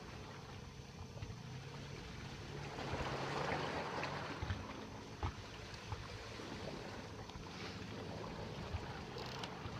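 Sea water sloshing and lapping against the hulls, with a swell of louder splashing about three seconds in, over a steady low hum and a few small knocks.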